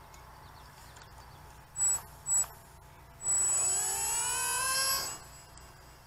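Tiny 4x12 mm electric motors of a micro RC plane: two short throttle blips about two seconds in, then a high whine rising in pitch as they spin up for the hand launch, falling away about five seconds in.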